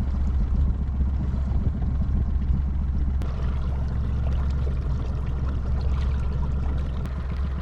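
Motorboat's outboard engine running steadily, heard from on board, with water washing along the hull.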